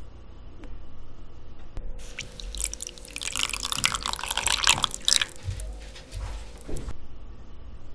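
Water poured in a thin stream from a small glass bowl onto a mound of granulated sugar in a nonstick pan, wetting the sugar for a marshmallow syrup. The pour starts about two seconds in, runs for about five seconds and stops.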